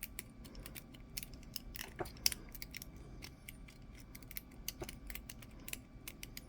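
Irregular light metallic clicks and scrapes of a lock pick and tension wrench working the pins inside a cheap Sepox brass padlock during single-pin picking.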